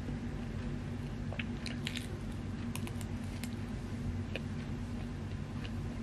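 Chewing and biting into a mini Napoleon cake: soft sponge and cream with crisp flaky pastry crumbs giving scattered sharp little crackles, thickest about two to three seconds in. A steady low hum runs underneath.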